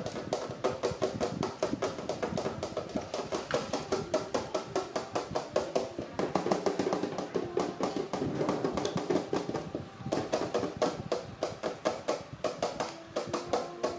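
Background music with a fast, steady percussive beat of about seven strokes a second and short instrumental notes over it.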